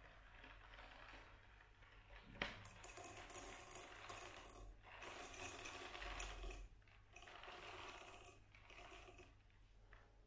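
Whole coffee beans poured into a small cup, pattering and rattling in several spurts, the first opening with a sharp click about two and a half seconds in.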